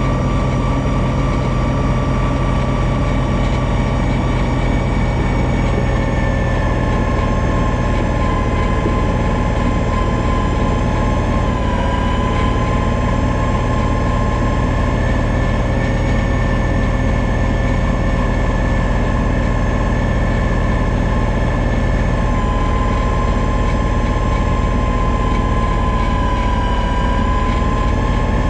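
John Deere 2032R compact tractor's three-cylinder diesel engine running at working speed while its 60-inch front snowblower throws deep snow, with a steady whine over the engine. The pitch sags briefly about twelve seconds in and again near the end.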